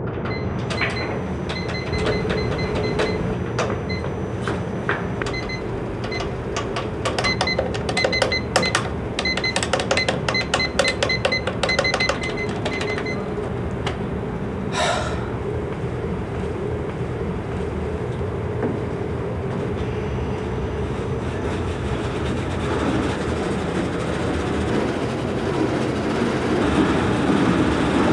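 Treadmill running with a steady motor-and-belt hum while its console beeps in repeated short series over roughly the first half. The running noise grows a little louder near the end.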